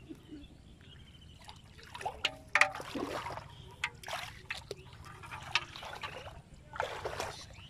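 Shallow water trickling and splashing in irregular bursts as a fishing net is lifted and fish are picked out of it into a plastic basin. The loudest splash comes about two and a half seconds in.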